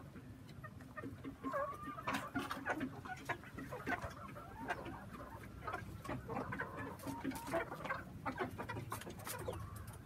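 A flock of country chickens, roosters and hens, clucking and calling in many short overlapping calls, sparse at first and busier from about two seconds in.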